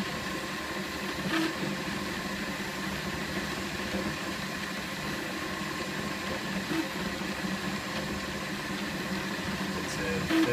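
Flashforge Dreamer dual-extruder 3D printer running while it prints infill: a steady mechanical hum from its motors and fans.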